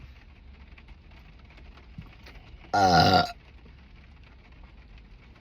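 One loud, deep burp of about half a second, near the middle, with a wavering pitch: soda gas coming up.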